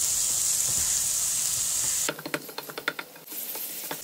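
Onion-tomato masala sizzling in oil in a ceramic-coated kadhai as a spatula stirs it, frying until the tomatoes break down and the oil separates. About halfway through the sizzle cuts off suddenly, leaving a run of spatula scrapes and taps on the pan.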